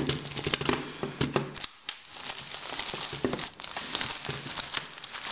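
Rustling and crinkling of a fabric drawstring tripod pouch being handled and opened, with short clicks and light knocks against a wooden table.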